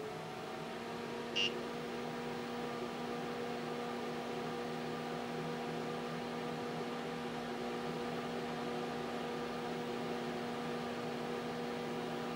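TRS-80 Model 16B computer running as it restarts and loads: a steady electric hum from its motors and fan, with one short click about a second and a half in.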